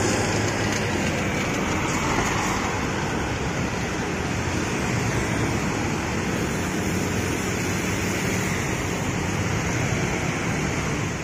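Steady road traffic noise, with a Scania K410IB double-decker coach driving away among it.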